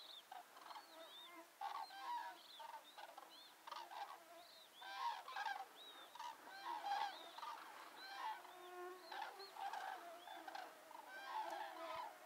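A flock of common cranes calling in flight overhead: many overlapping trumpeting calls, swelling louder about five and seven seconds in.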